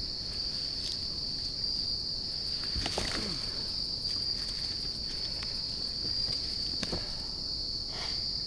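Steady, high-pitched insect chorus. A few brief rustles and scrapes of leaf litter and brush come about a second in, around three seconds, and near the end as a deer carcass is handled.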